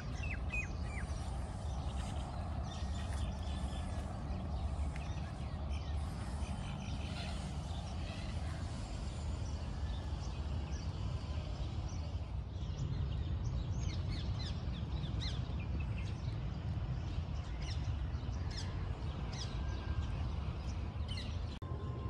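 Small birds chirping and calling in quick, short notes, busier in the second half, over a steady low outdoor rumble.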